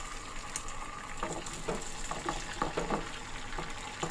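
Beaten egg frying in hot oil in a nonstick pan, with a steady sizzle. A few short clicks come through the middle.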